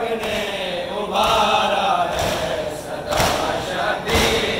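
A group of mourners chanting a noha in unison. About halfway in, rhythmic chest-beating (matam) joins as heavy thumps roughly once a second.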